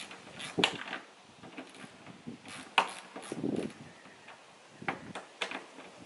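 Irregular metallic clicks and ticks from a hand tool undoing a 10 mm bolt that holds a car door handle, with a brief rustle of handling in the middle.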